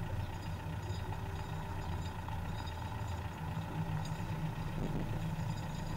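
Skoda Octavia TDI's four-cylinder turbodiesel running steadily at low revs, a continuous low hum, as the car rolls slowly over paving blocks.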